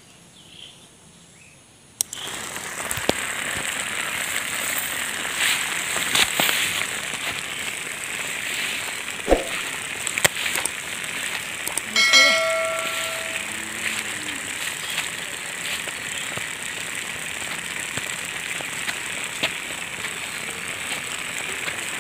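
Small DC motors of a homemade cardboard toy car switching on about two seconds in and then running with a steady high whir as its propellers spin. Around the middle a click and a short bell-like ding sound out.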